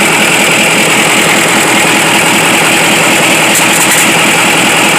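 Scania LK 141's V8 diesel engine running steadily, on its first run after some five or six months standing.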